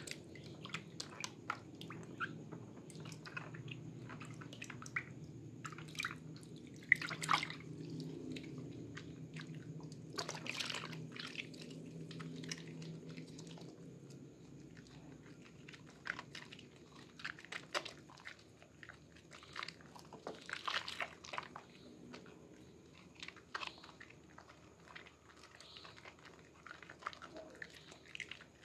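Wet hands rubbing and turning a bar of Sehat red soap in a basin of water, without a sponge: irregular squelching and clicking wet sounds with small splashes as the lather builds, a few louder bursts around a quarter and two thirds of the way in.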